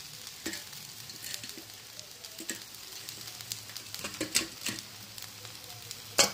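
Battered pumpkin-flower fritters sizzling in shallow oil on a flat nonstick pan, a steady hiss with scattered crackling pops. The sharpest, loudest crack comes near the end.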